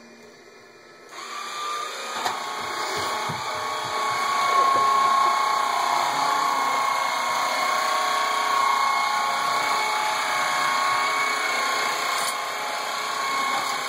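Vacuum cleaner switched on about a second in, its motor spinning up over a few seconds to a steady whine over the rush of air.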